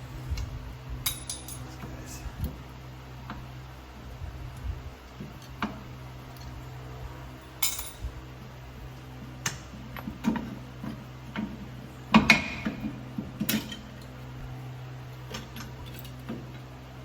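Scattered metallic clinks and knocks of hand tools and loose drum brake parts being handled, with a louder burst of clattering about three-quarters of the way through, over a steady low hum.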